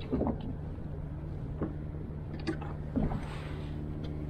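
Steady low drone of a boat engine, with a few short knocks and splashes of water against the kayak.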